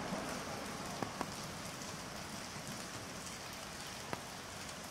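Heavy rain falling steadily as an even hiss, with a few louder single drops ticking close by, twice about a second in and once near the end.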